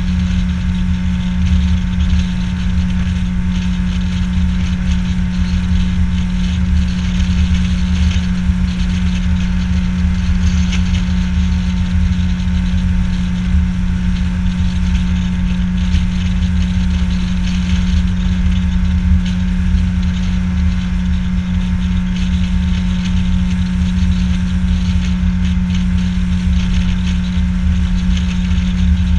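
A small fishing boat's outboard motor running steadily at cruising speed: a constant low drone and hum, with a steady hiss over it.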